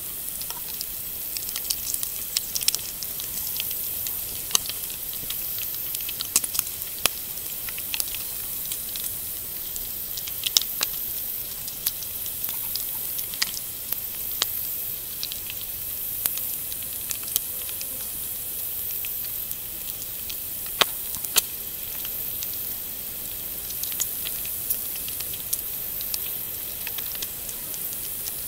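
Bacon frying in a small pan, nearly crisp: a steady high sizzling hiss with frequent short crackling pops, a few of them sharper and louder.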